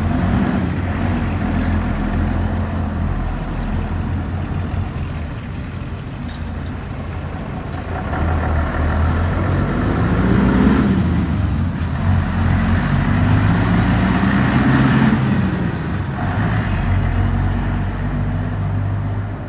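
Town-centre street traffic: a motor vehicle's engine runs close by, growing louder in the middle, where its pitch rises and falls twice as it speeds up and shifts, over a steady traffic hum.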